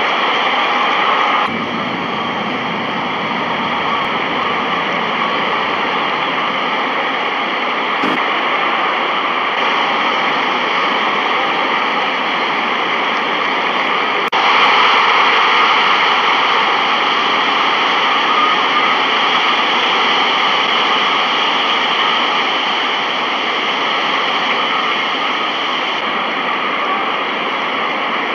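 Steady roaring noise with no distinct events, stepping up in level about 14 seconds in.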